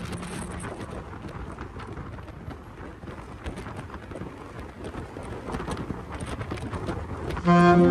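Wind and road noise from riding a 2023 Kymco KRV 200 scooter, an even rushing with no clear engine note. Music comes in loudly near the end.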